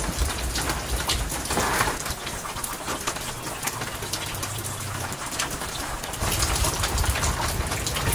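Steady rain falling, with many small drops ticking on nearby surfaces.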